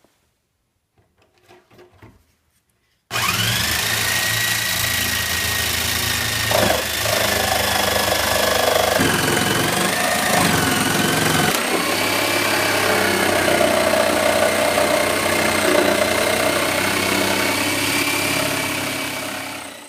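Corded electric jigsaw cutting through plywood: the motor starts about three seconds in and runs loudly with a high whine over the blade's chatter, its pitch sagging a few times as the blade loads up in the cut. It winds down just before the end.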